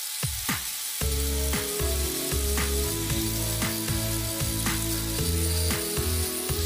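Angle grinder with an abrasive disc grinding the steel of a rusty hatchet head: a steady high whine and hiss. Background music with a bass line and a regular beat comes in about a second in and is the loudest sound.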